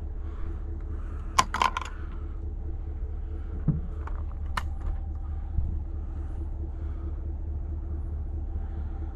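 Vehicle engine running with a steady low hum, with a quick cluster of sharp clicks about a second and a half in and two more single clicks a few seconds later.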